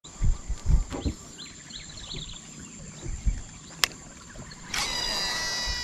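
Water splashing against the side of an aluminium boat as a giant snakehead is let go by hand, with birds chirping. About five seconds in, a baitcasting reel's spool whirs briefly during a cast, a high whir with some tones falling as the spool slows.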